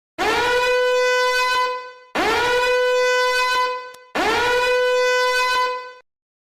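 A horn-like meme sound effect: three identical long blasts, each sliding up into the same steady note and fading out, with short gaps between them.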